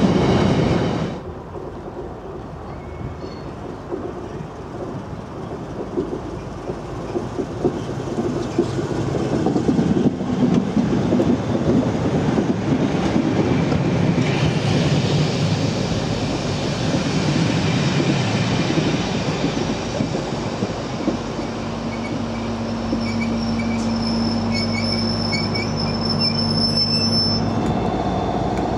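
The last second of a container freight train rumbling past, cut off suddenly; then a Network Rail test train's coaches rumble and clatter along the platform, growing louder. Near the end, high wheel squeals as it draws to a stop and a steady hum from its Class 57 diesel locomotive's engine.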